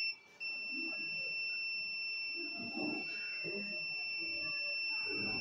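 Satellite finder meter's buzzer: high beeps about twice a second that, just under half a second in, merge into one steady tone, the sign that the dish has been aimed onto the satellite's signal. Faint handling knocks from the dish underneath.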